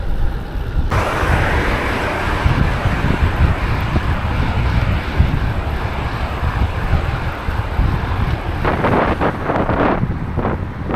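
Wind buffeting the action camera's microphone while riding a road bike: a heavy low rumble throughout, with a louder rushing hiss that comes in about a second in and turns gusty near the end.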